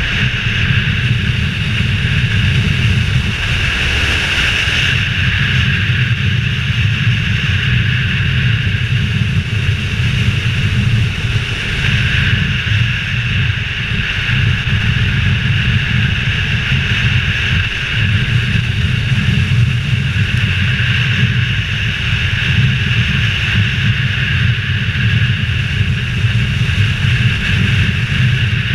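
Adventure motorcycle riding along at a steady cruising speed: engine drone mixed with wind buffeting on a helmet-mounted camera.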